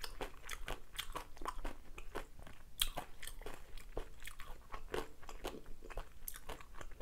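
Close-miked chewing of a mouthful of curry rice with seokbakji (chunky radish kimchi), the radish giving many crisp, irregular crunches.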